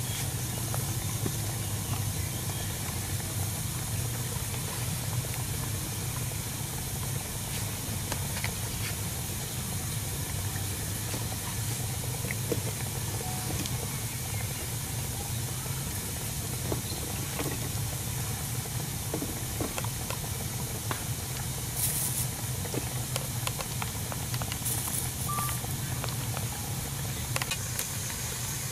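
Steady hiss with a low rumble underneath, and scattered light clicks and taps as utensils and food are handled.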